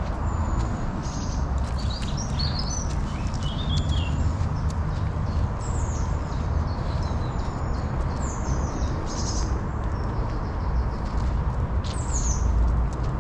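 Several songbirds singing: short chirps, trills and falling whistled notes, over a steady low rumble.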